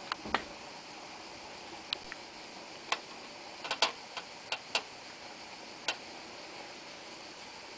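A paintbrush clicking and tapping against a metal watercolour paint tin while colour is mixed: about ten short, sharp clicks scattered through, bunched together in the middle, over a steady hiss.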